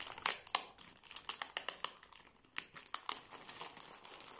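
Clear plastic bag crinkling as it is pulled and unwrapped off a wireless router, a run of irregular sharp crackles.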